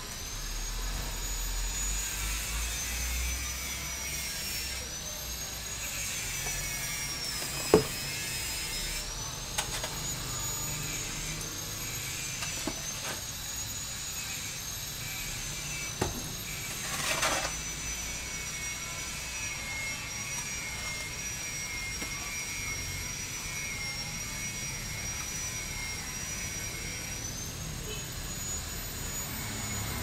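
A hoe knocking and scraping through sand and cement while mortar is mixed by hand: a few sharp knocks, the loudest about 8 seconds in, and a scrape about 17 seconds in. A steady high-pitched whine that slowly wavers in pitch runs underneath throughout.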